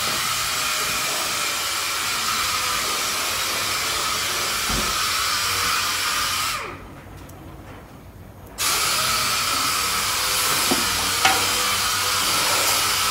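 A pneumatic tool running with a steady hiss. It winds down a little past the middle, stays off for about two seconds, then starts up again sharply.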